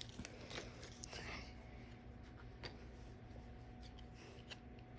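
Faint rustling and scattered soft clicks of trading cards being handled from a freshly opened pack.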